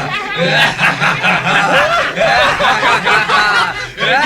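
Wordless vocal sounds like snickering and chuckling, with voices sliding up and down in pitch, over a low instrumental line of held notes that steps from one pitch to another.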